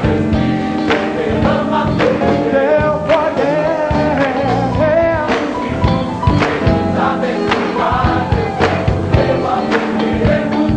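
Gospel choir singing with a live band, drums keeping a steady beat under the voices.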